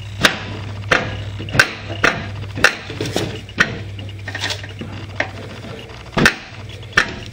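Sharp metal clunks and knocks, about ten at uneven intervals, as a homemade metal shift lever on a Craftsman DYT 4000 riding mower's Peerless manual transaxle is worked back and forth in its slot.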